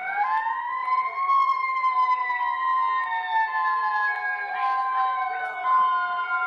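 Emergency alert siren sweeping up sharply in pitch in the first second, then slowly winding down, over steady electronic alert tones that step between pitches.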